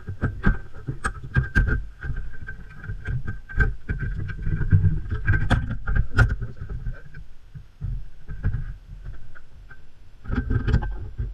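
Irregular sharp metal clicks and knocks of hand tools tightening the AC compressor's mounting bolts, a few a second, over low rumbling handling noise.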